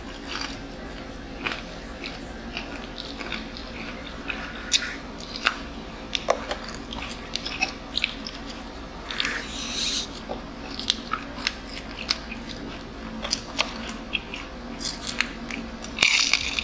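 Close-up chewing and crunching of crispy fried chicken, with many small wet clicks of eating. There is a brief rustle about nine seconds in and a louder crunchy bite near the end.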